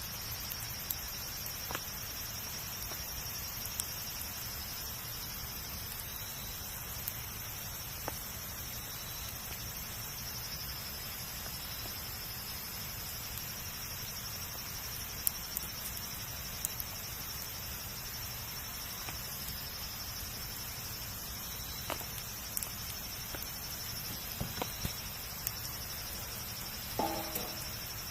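Wood fire crackling, with scattered sharp pops over a steady low rumble. Insects chirr steadily and high-pitched throughout. There is a brief squeaky sound near the end.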